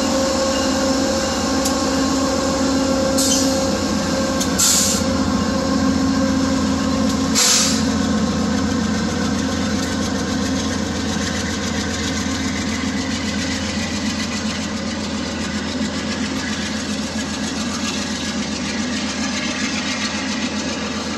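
Via Rail diesel-electric locomotive idling with a steady engine drone, with three short hisses in the first eight seconds.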